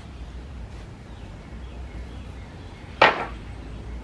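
Wooden 1x4 boards set down, knocking together in one sharp clatter about three seconds in, over a low steady background rumble.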